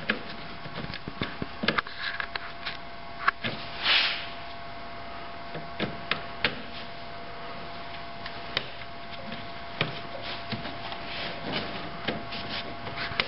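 Small metallic clicks, taps and rubbing of a hand tool and fingers working a spring clip and cable in an engine bay, scattered irregularly, with a brief scrape about four seconds in. A faint steady hum runs underneath.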